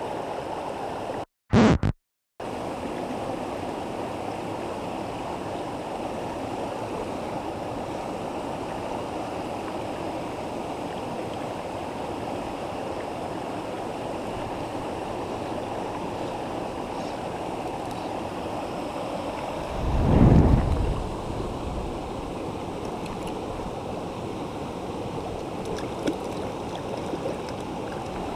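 River water rushing over rocks in a fast, shallow stream: a steady wash. The sound drops out briefly a second or two in, and a short, loud low rumble comes about twenty seconds in.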